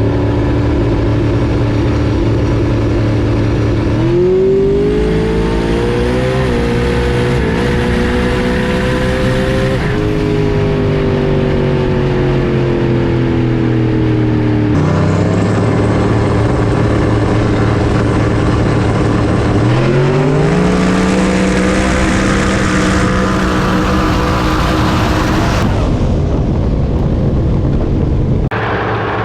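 Race car engines running loud: steady, then climbing in pitch with a couple of gear changes and easing off, then climbing again and holding.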